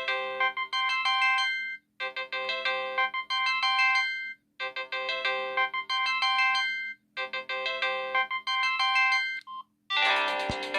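Samsung SGH-T309 mobile phone playing a ringtone through its speaker: a short electronic melody that loops four times, about every two and a half seconds with a brief gap between. Near the end a different, busier ringtone starts, followed by a single click.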